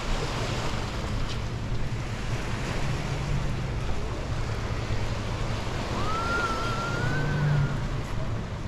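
Seaside ambience: a steady rush of surf and wind on the microphone. About six seconds in, a single thin whistle-like tone rises and then wavers for a second and a half.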